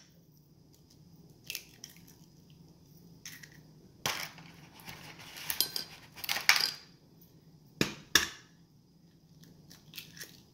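Raw eggs cracked one after another into a stainless steel mixing bowl: several sharp taps and the crunch of eggshells breaking, spread over the few seconds.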